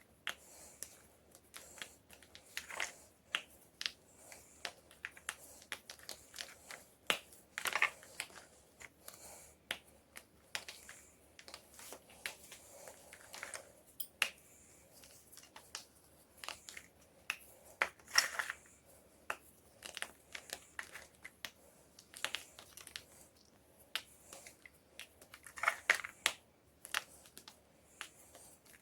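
Homemade gym chalk crunching, snapping and crackling as it is crushed, in an irregular run of sharp crackles with louder bursts of crushing about eight, eighteen and twenty-six seconds in.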